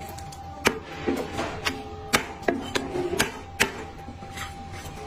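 Chinese cleaver chopping through braised meat onto a thick wooden chopping block: about seven sharp knocks at uneven intervals, with a faint steady tone underneath.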